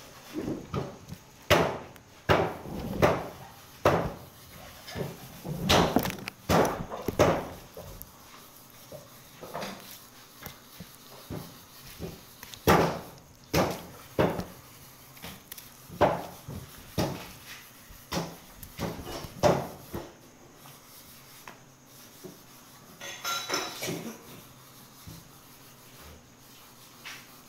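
Irregular knocks and thuds, one or two a second and sparser in the last few seconds, as a beef hindquarter is cut with a knife and shifted about on a stall table.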